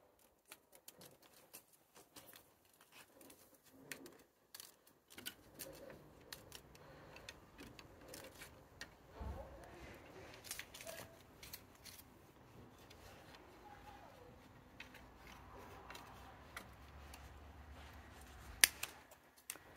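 Scattered light clicks and taps as a cat-wand toy on a string is jiggled against the slats of a wooden deck chair, with one sharp click near the end.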